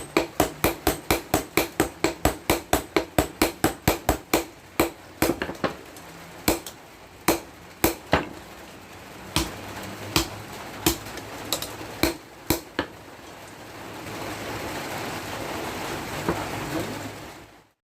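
Hammer blows on the steel of a tractor chopper blade being forged into a machete. The blows come quickly, about four a second, for the first five seconds, then slow to scattered single strikes. Near the end a steady hiss rises and then cuts off.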